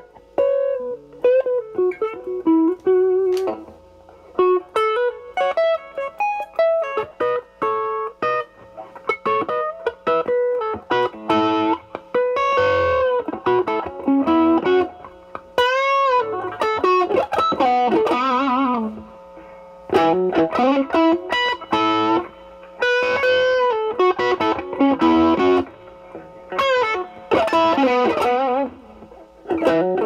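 Stratocaster-style electric guitar with single-coil pickups played through a 1986 Pro Co RAT2 distortion pedal (LM308N chip) into a Marshall Valvestate amp's clean channel, distortion at about 12 o'clock but cleaned up. Single-note lines and chords in short phrases with brief pauses, with vibrato on held notes.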